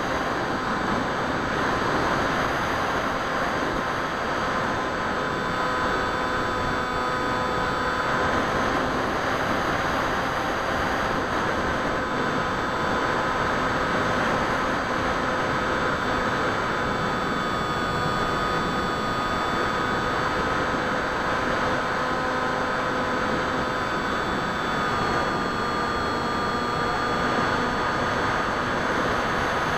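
Bixler 2 RC plane's electric motor and propeller whining steadily, picked up by its onboard camera, over a rushing wind-noise hiss; the whine drifts slightly up and down in pitch.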